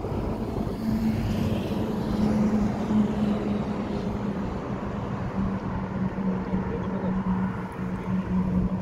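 Steady low drone of a distant engine, a held hum over background noise.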